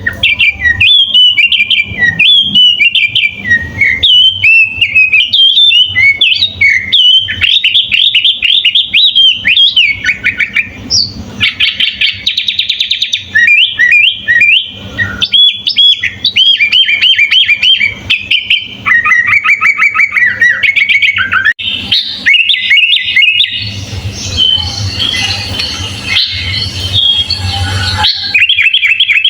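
Sooty-headed bulbul (kutilang) singing without pause: a dense run of quick, varied chirps and whistled phrases. About twelve seconds in there is a fast, even trill, and near the end a rougher, noisier passage.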